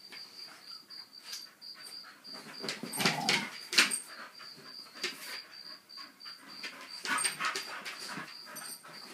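Dogs play-fighting on a dog bed: scuffling and short dog vocal sounds in bursts, loudest around three to four seconds in and again about seven seconds in.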